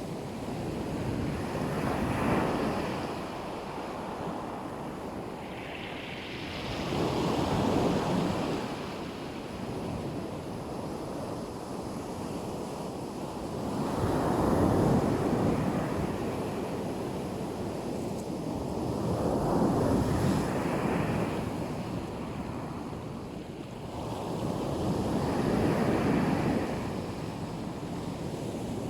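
Black Sea surf washing onto a beach: five waves break and surge in, one about every five to six seconds, over a steady wash of water.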